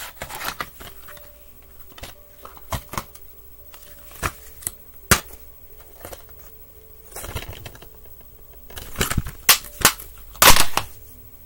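Plastic DVD cases clicking and knocking as they are handled on a wooden floor: irregular sharp clicks, with a louder burst of knocks and rattles near the end.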